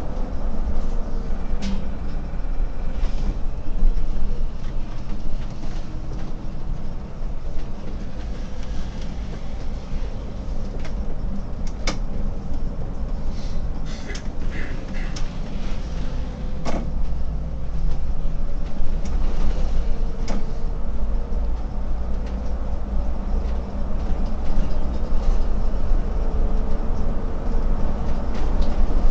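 Solaris Urbino 18 IV articulated city bus driving, heard from the driver's cab: a steady low rumble of engine, drivetrain and tyres, with a few sharp clicks and rattles from the cab.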